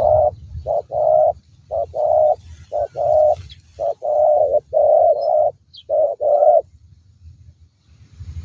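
Spotted dove cooing: a steady run of paired coos, each a short note and then a longer one, about one pair a second. The coos stop about six and a half seconds in.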